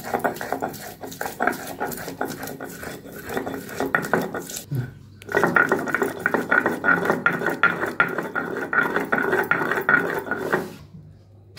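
Onion and ginger being ground into a wet paste on a shil-nora: a stone grinding stone rubbed hard back and forth over a stone slab, giving a dense, gritty scraping and crunching. It pauses briefly a little before halfway, starts again, and stops near the end.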